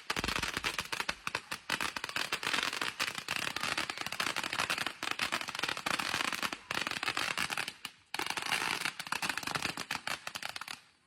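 Fireworks crackling: a dense, rapid run of sharp pops like a long string of firecrackers. There is a brief break about eight seconds in, and it thins out near the end.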